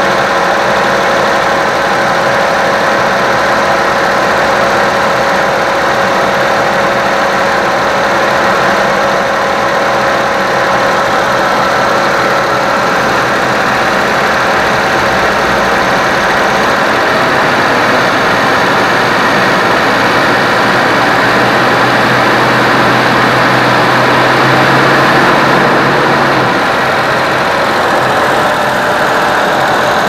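Suzuki Jimny JA11's small three-cylinder engine running steadily with the air-conditioning compressor engaged while refrigerant is charged. About halfway through the engine note shifts and grows slightly louder as the revs are raised to pull the low-side pressure down and draw the last refrigerant from the can.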